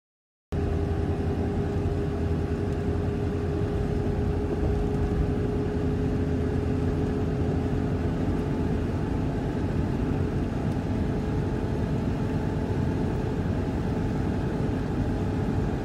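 Vehicle driving: steady engine and road noise with a deep rumble and a faint steady hum. It starts suddenly about half a second in.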